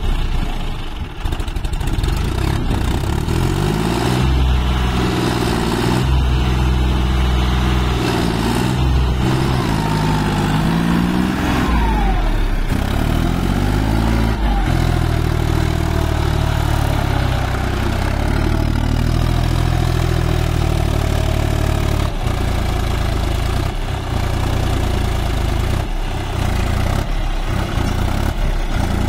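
John Deere 5050D tractor's three-cylinder diesel engine running under heavy throttle. Its pitch swings up and down several times in the first half as it is revved, then holds fairly steady.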